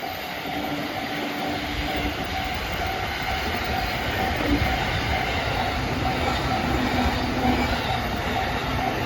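Freight train of Koki container wagons rolling past close by: a continuous rumble and rattle of wheels on rail, the low rumble coming in strongly about a second and a half in and slowly growing louder.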